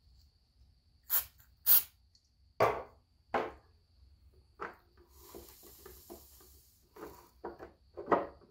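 3D-printed plastic armour pieces being handled and pressed together on a workbench: a series of sharp taps and knocks, with a short hiss lasting under two seconds about five seconds in.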